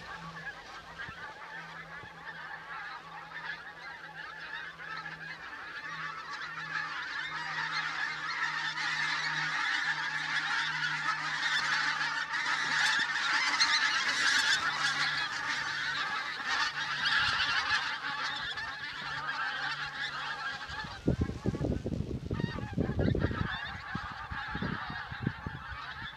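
A large flock of pink-footed geese calling, many overlapping honks swelling louder toward the middle and then easing. A few low rumbling bumps come in near the end.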